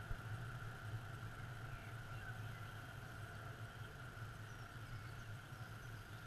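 Faint, steady hum with a few faint, brief bird chirps.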